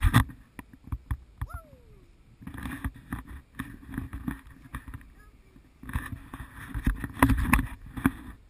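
Creaks and knocks from an elephant-ride seat swaying with the elephant's steps, with one short falling squeak early on and two longer noisy stretches of rubbing in the middle and near the end.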